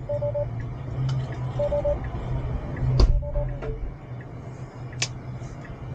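A car door shutting with a single solid thud about three seconds in, over a steady low cabin hum. Short electronic chimes of three quick beeps repeat about every second and a half.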